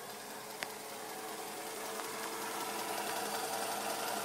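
Pfaff 332 sewing machine running under its foot pedal: a steady motor whir and needle-bar clatter that slowly gets louder, with a single click soon after it starts, then stops abruptly at the end.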